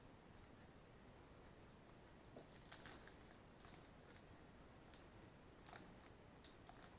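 Near silence with scattered faint clicks and light rustles: trading cards being handled and slid against one another.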